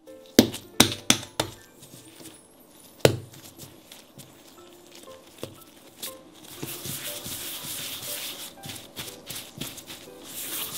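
Bread dough being rounded by gloved hands on a marble countertop: a steady rubbing, brushing sound from about six seconds in. Before that, a handful of sharp knocks on the counter in the first few seconds as the dough pieces are handled.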